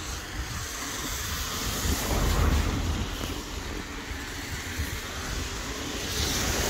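Wind rumbling on the microphone, with a car on the wet road swishing past and growing louder near the end.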